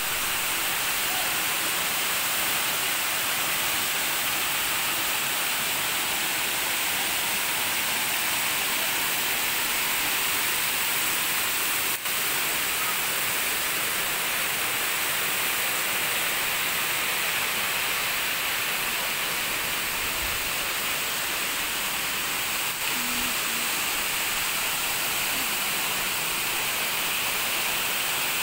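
Waterfall spilling down a rock face into a pool: a steady, unbroken rush of falling water.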